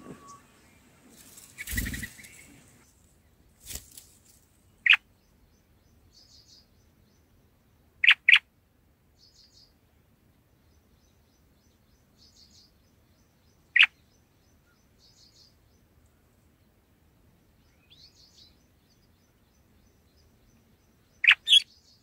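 Bulbul calls at the nest: short, sharp chirps, single or in quick pairs, several seconds apart, with faint high chirping in between. A brief rustle comes about two seconds in.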